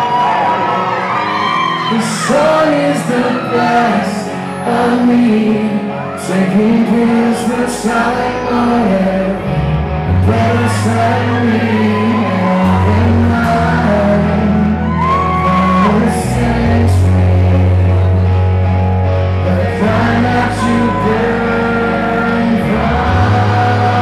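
Live rock band playing with a male lead singer singing into a microphone; a deep, held bass line comes in about ten seconds in.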